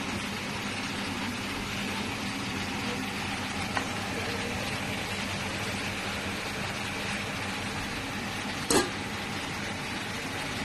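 A steady mechanical hum and hiss, like kitchen machinery running, broken by two short sharp knocks, a faint one about four seconds in and a louder one near nine seconds.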